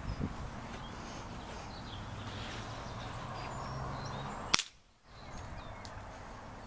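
A single sharp crack about four and a half seconds in as a pellet from a .177 Weihrauch HW77K spring-piston air rifle is fired into the paper target, over steady wind noise on the microphone. The sound drops out for about half a second right after the crack.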